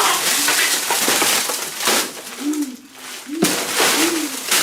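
Rustling and crinkling, with two short low hums that rise and fall, about two and a half and four seconds in.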